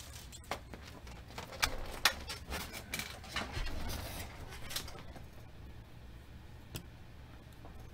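Trading cards and plastic card sleeves being handled on a table: soft rustling with several light clicks and taps over the first few seconds, then quieter with one more tap.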